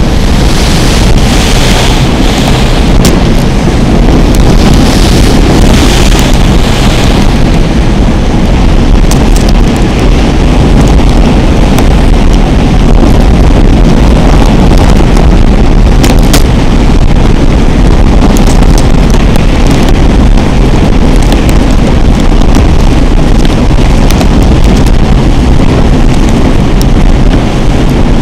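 Loud, steady wind rumble on the microphone of a boat under way, mixed with the boat's engine and the rush of water.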